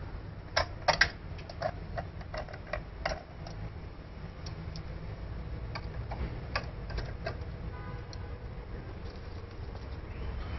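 Sharp metallic clicks and taps as a screwdriver works at the hub of a self-balancing scooter's alloy wheel. The clicks come thick and fast in the first few seconds, then sparser, over a low steady rumble.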